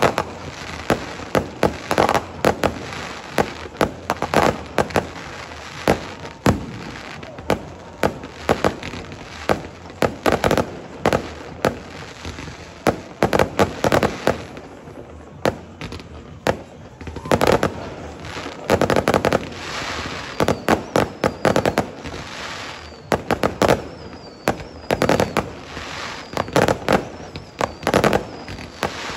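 Fireworks display: aerial shells bursting in many sharp bangs, irregular and often in rapid clusters.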